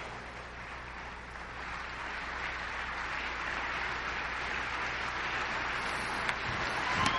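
Audience applauding and murmuring, fairly quiet and slowly growing louder, with a few sharp knocks near the end.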